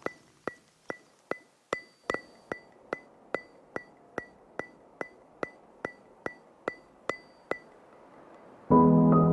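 Background music: a steady, clock-like ticking, about two and a half ticks a second, each tick with a short bright ring. The ticking stops shortly before the end, and keyboard music with sustained chords comes in.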